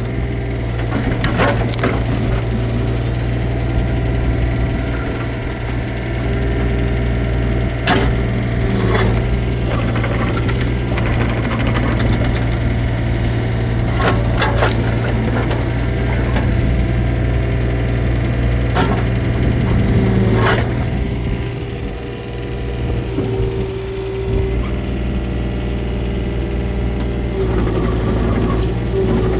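Takeuchi TB135 mini excavator's diesel engine running steadily while the machine is worked, with a pitched hum that comes and goes and several sharp knocks spread through.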